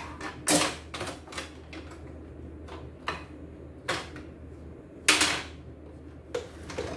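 Irregular sharp clicks and knocks of hard plastic parts as the white plastic housing of a CNY E960 embroidery machine is worked loose and lifted off by hand. The loudest knock comes about five seconds in.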